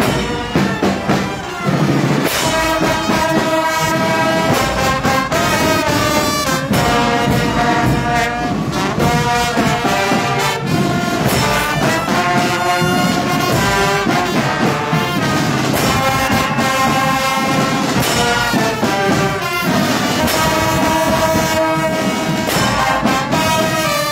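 Brass band music, horns playing a melody over drum beats.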